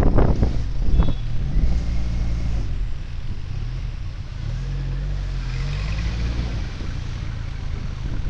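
Motorcycle engine, the Benelli TRK 502's parallel twin, running with the revs rising and falling twice, with wind noise over the microphone.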